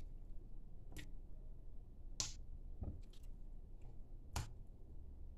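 Four scattered light clicks over a low steady hum, the loudest just past two seconds in.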